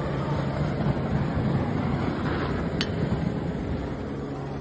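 Steady rushing noise of wind buffeting a phone's microphone outdoors, over a faint low hum, with one short click about three seconds in.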